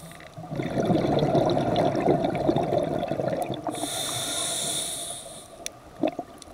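A diver's scuba regulator heard underwater. An exhaled breath sends out a long burble of bubbles lasting about three seconds, then an inhaled breath through the regulator hisses. A couple of sharp clicks come near the end.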